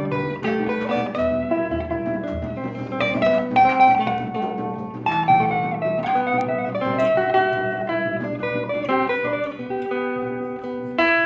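Plucked string instruments playing an improvised melody, with held notes and a few sliding pitches over a low accompaniment.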